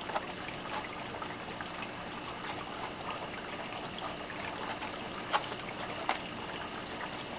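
Aquarium water trickling and bubbling steadily, from the air-bubble flow of an algae scrubber on a small tank. Two sharp ticks come in the second half.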